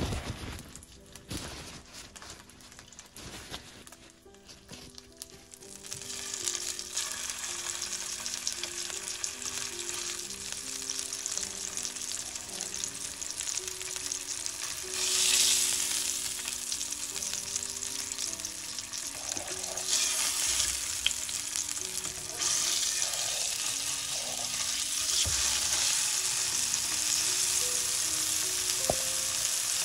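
A Wagyu beef steak frying in hot oil in a copper pan, sizzling steadily from about six seconds in, with a louder surge of sizzle about halfway through. Before that, a few soft rustles of paper towel as the steak is blotted dry.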